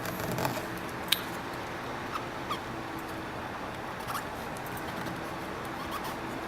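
Faint squeaks and light clicks of something rubbing and pressing over a mirror screen protector on a phone screen to push out air bubbles, with one sharp click about a second in, over a steady low hum.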